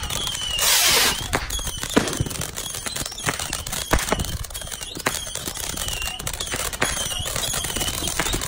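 A consumer firework cake going off on the ground: a string of sharp cracks and pops, short falling whistles again and again, and a loud hiss of sparks about a second in.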